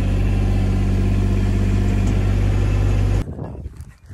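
A farm vehicle's engine running steadily at a constant pitch, cut off abruptly about three seconds in, leaving faint wind noise.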